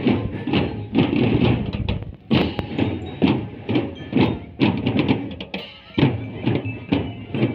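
Marching drum band playing: snare, tenor and bass drums beaten together in a fast, steady rhythm.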